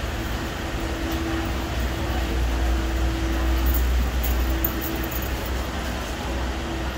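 Peak Tram funicular car running: a steady low rumble with a steady hum that swells and fades a few times.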